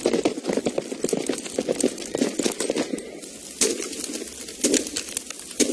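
Horse hooves beating in a rapid, uneven clatter, with a few louder sharp knocks spaced about a second apart in the second half.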